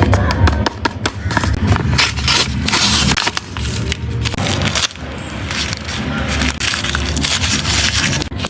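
Blind-bag packaging crinkling and crackling close to the microphone as it is handled, with many quick clicks and crackles and a steady low rumble underneath.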